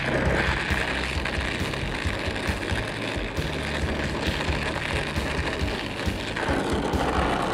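Oxyacetylene torch flame hissing steadily as it heats a cast iron exhaust manifold for silver-solder brazing, with background music underneath.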